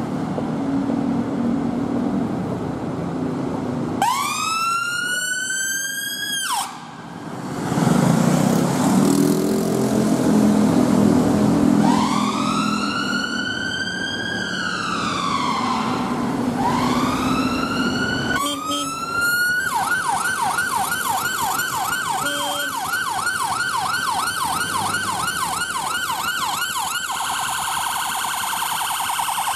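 Emergency sirens of Mercedes-Benz van ambulances responding on blue lights through city traffic, with traffic rumble between them. First a slow wail that rises and falls, then a fast yelp of about four sweeps a second, turning to a quicker warble near the end.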